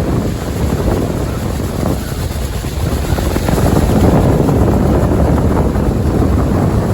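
Loud, steady rush of wind on the microphone over the roar of the water at Niagara Falls, getting a little louder about halfway through.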